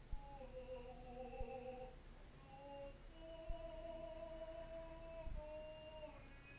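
A singer's voice in vocal practice, holding long, slightly wavering notes, the longest for about three seconds, with a step down in pitch near the end. A few short dull low thumps sound under it.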